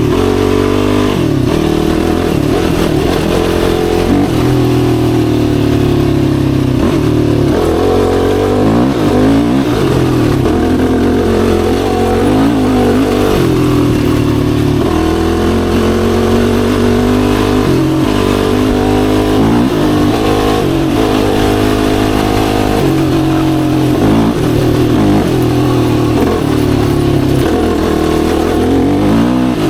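Yamaha YFZ450R sport quad's single-cylinder four-stroke engine under way, its pitch climbing and dropping back again and again as the throttle is opened and eased off.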